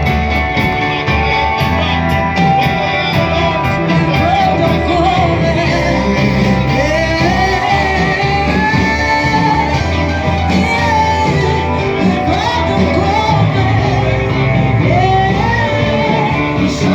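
Church worship band playing steadily with guitar and drums, voices singing and shouting over the music.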